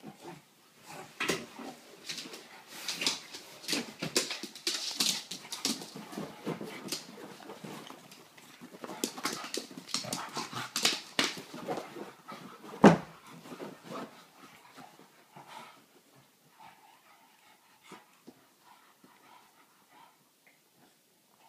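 Two Shar-pei puppies play-fighting on dog beds: scuffling and whimpering, with one loud sharp sound about thirteen seconds in. The noise dies down over the last few seconds.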